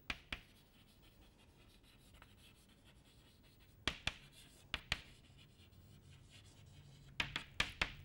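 Chalk writing on a blackboard: faint short taps and scratches of the chalk against the board, coming in small clusters near the start, around the middle and near the end.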